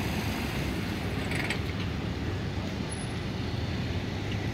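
Steady low rumble of vehicle engines and traffic, with a short creak about a second and a half in.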